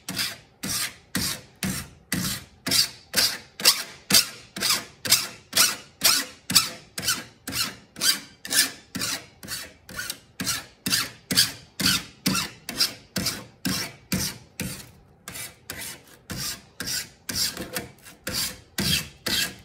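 Steel hand file rasping down the edge of a thin copper etching plate in a quick, even run of strokes, two or three a second, bevelling the plate's edge.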